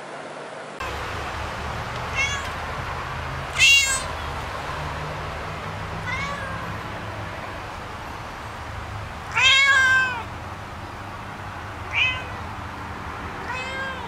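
A cat meowing over and over, six meows each rising and falling in pitch, the loudest and longest about four seconds in and near the middle. Under the meows is a steady background hum.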